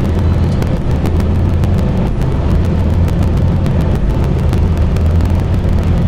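Peterbilt semi-truck cruising at highway speed, heard from inside the cab: a steady low diesel engine drone with road and tyre noise.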